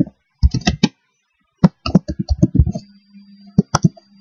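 Typing on a computer keyboard: quick keystrokes in short uneven bursts with brief pauses between them.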